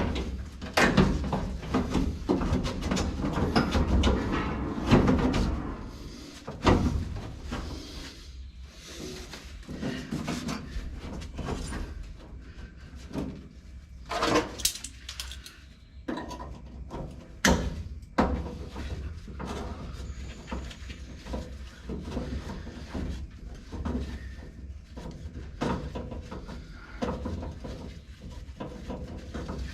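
Irregular metal clanks, scrapes and rattles of hand work on a window regulator inside a 1955 Chevrolet 210's door, busiest in the first few seconds, then scattered knocks with a couple of sharp ones midway.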